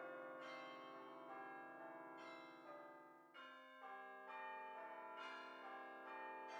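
Faint ringing of bells, a new stroke about once a second, each tone ringing on into the next.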